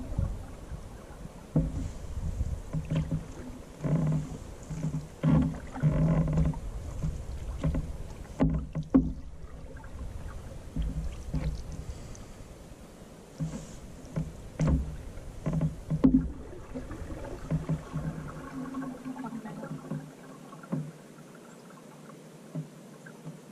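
A Northstar Northwind 16 canoe being paddled, with irregular paddle strokes in the water and knocks of the paddle against the hull.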